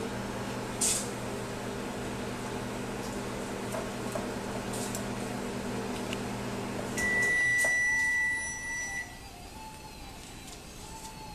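Microwave oven running with a steady hum that stops about seven seconds in, as a single long high-pitched beep sounds for nearly two seconds.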